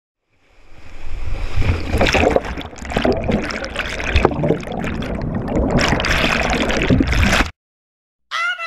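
Churning whitewater in a river rapid around a kayak, heard partly from underwater, a dense rushing roar with a low rumble and scattered knocks and splashes. It cuts off suddenly, and a pop song with singing starts near the end.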